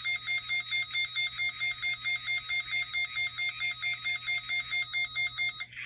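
Weather radio receiver's electronic alert alarm: a warbling tone that switches rapidly back and forth between two pitches, cutting off abruptly just before the end.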